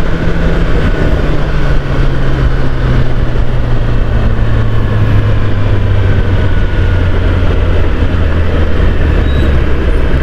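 Kawasaki ZX10R's inline-four engine running at a steady cruise, its pitch easing down slightly, under heavy wind rush on the helmet-mounted microphone.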